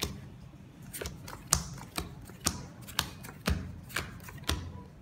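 Playing cards dealt one at a time from the deck onto a card table, a sharp click about every half second.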